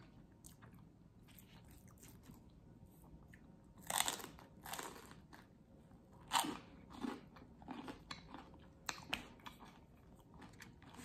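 A person biting into and chewing crunchy breakfast food close to the microphone: a quiet start, then a loud crunch about four seconds in, followed by several more crunches and small chewing clicks.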